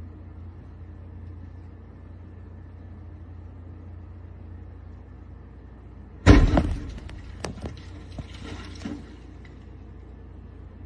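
A sudden loud bang about six seconds in that dies away over about a second, followed by a few fainter knocks, over a low steady hum.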